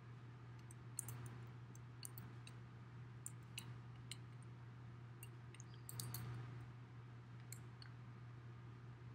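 Small hand paint roller being worked over roofing tar paper: faint scattered clicks and ticks, with a short swell of rolling noise about six seconds in, over a steady low hum.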